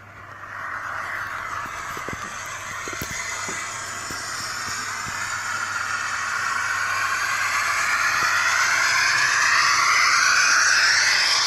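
Model T20 steam locomotive's sound decoder playing a steady steam hiss through its small loudspeaker, growing steadily louder over the seconds as the model comes closer, with a few faint clicks early on.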